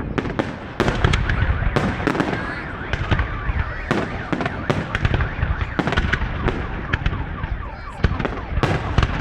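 Fireworks display: a dense, irregular run of sharp bangs and crackles, several a second, over a continuous rumble of bursts.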